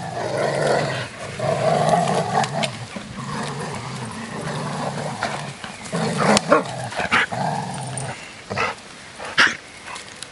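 Two dogs growling as they tussle, in long low rumbles, with a few short sharp sounds in the second half.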